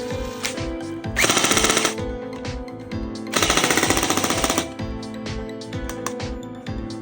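Toy gun firing, two bursts of rapid rattling, the first short and the second about a second long, over background music with a steady beat.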